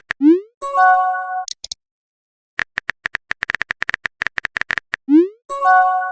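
Messenger-style sound effects: a swoop and a short chime chord, then after about a second of quiet a run of quick typing clicks, about seven a second, for some two seconds, followed again by the swoop and the chime chord near the end.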